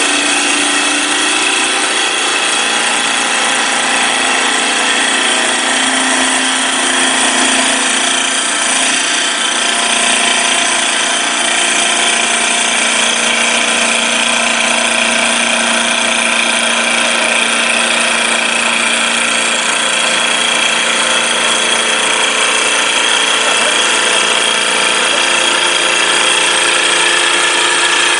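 Double-knife CNC wood lathe turning a wooden spindle: the knives shave the spinning wood with a loud, steady hiss over the machine's running whine.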